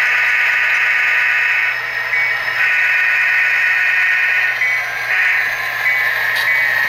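Tsunami sound decoders in HO-scale model diesel locomotives, an NS GP60 and B40-8, playing diesel locomotive sounds through their small speakers as the train rolls along. The sound is a steady drone with little bass, dipping briefly about two seconds and five seconds in.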